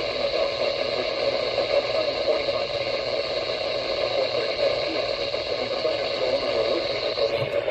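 Steady radio static: an even hiss of noise from a radio receiver, with the noise changing character just before the end.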